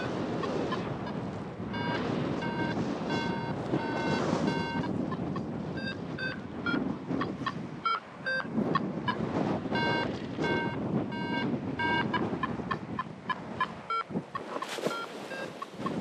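Rapid short electronic beeps that jump between several pitches, over steady wind noise.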